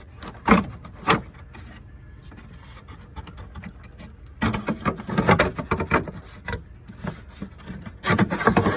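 Engine cover being pulled off: a string of knocks and rubbing scrapes, two sharp knocks about a second in and a busier cluster from about four and a half to six and a half seconds.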